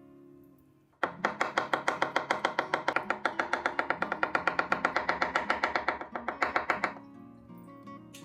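Kitchen knife chopping rapidly on a cutting board, about seven cuts a second for around six seconds, starting about a second in, over background acoustic guitar music.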